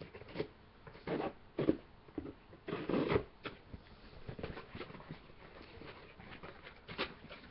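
A shipping box being torn and pried open by hand: tearing, scraping and rustling in irregular bursts, the strongest about three seconds in.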